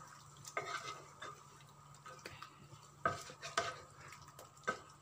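Wooden spatula stirring chunks of chicken and potato in a thick curry sauce in a square pan, scraping and knocking irregularly against the pan, with the strongest knocks about three seconds in and near the end.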